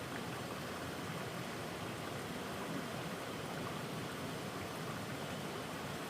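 Running water of a stream: a steady, even rush with no breaks.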